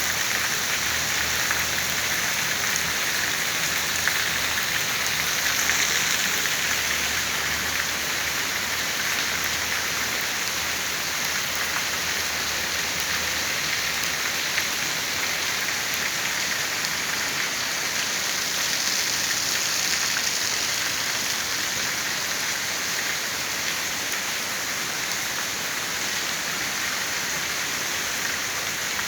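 Heavy rain falling steadily, a dense even hiss of drops on surfaces with faint scattered patters.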